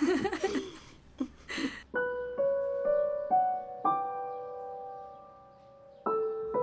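Soft solo piano from the background score: single notes struck one after another, each ringing on and fading, dying away before a new phrase begins about six seconds in.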